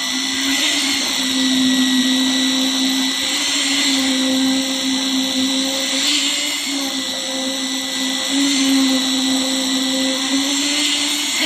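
Small motor running steadily, a constant hum with hiss and no breaks, from machinery used in casting a concrete footing.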